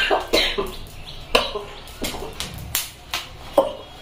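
A person coughing in a string of short, sharp coughs, set off by the pungent smoke of green chillies catching fire while being charred over a flame.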